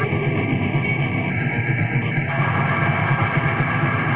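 Raw, lo-fi black metal: a dense, steady wall of distorted guitar.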